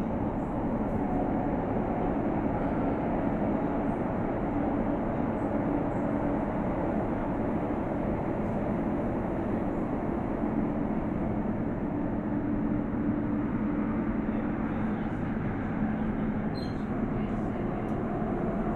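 Inside an Elizabeth line train running between stations: a steady rumble of wheels and running gear with a constant low hum. A faint brief squeak comes about three-quarters of the way through.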